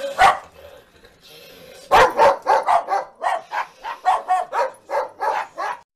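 A dog barking with bared teeth: one bark just after the start, then, after a short pause, a rapid run of barks about four a second that cuts off abruptly near the end.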